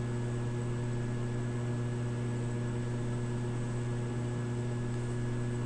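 Steady electrical hum with a constant hiss underneath, unchanging throughout: the background noise of the recording setup, with no other sound.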